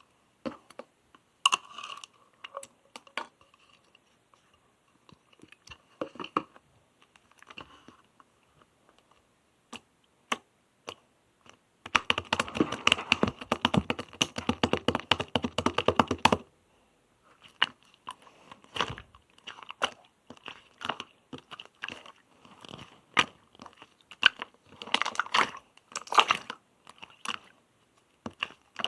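Clear, colourless slime being squeezed and pressed by hand, giving scattered sticky clicks and crackly pops. In the middle there is a few seconds' run of dense, rapid clicking.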